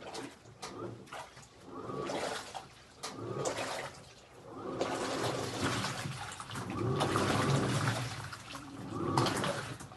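Panasonic washing machine washing a load: water sloshing in repeated swells every second or two, with a low motor tone under the louder swells.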